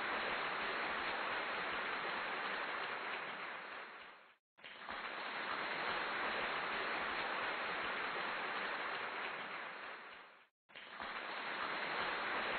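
A steady, even hiss like static or rain noise. It fades down and cuts out for a moment twice, about four and a half seconds in and again about ten and a half seconds in, and returns each time.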